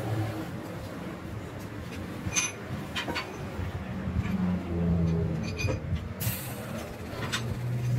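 Metal clinks and taps as an exhaust header pipe is handled and the TIG torch is brought to the joint, with a short hiss about six seconds in. A low droning hum runs underneath.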